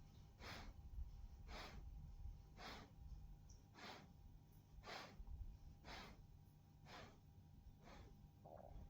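Borzoi breathing quietly in slow, even breaths, about one a second.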